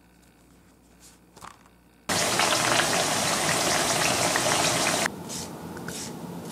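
Starch-coated potato slices sizzling and crackling in shallow hot oil in a frying pan, loud and dense, cutting off suddenly about three seconds after it starts.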